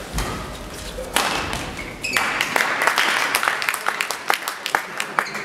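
Sharp taps and knocks of badminton play in a sports hall, racket hits on shuttlecocks and shoes on the court floor, coming thick and fast in the second half, over hall chatter.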